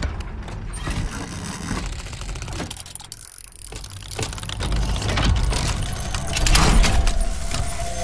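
Sound effects of an animated logo intro: a dense run of metallic clicks and clanks over a deep rumble, swelling twice, about five and seven seconds in, with a sustained ringing tone setting in near the end as the logo appears.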